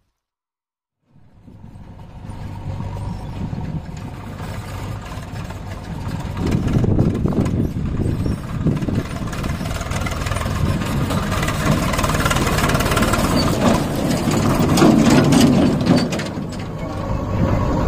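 Diesel tractor engine running, pulling a loaded trolley. It comes in about a second in, faint at first, and grows louder over the next few seconds, then stays loud.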